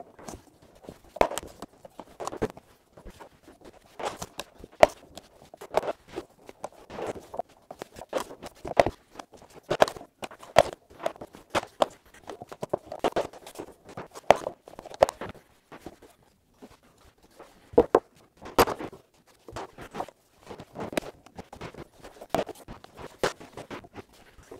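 Irregular knocks and clacks, about a second apart, of rigid-core luxury vinyl planks being set down and tapped into place on a wood subfloor, mixed with footsteps across the floor.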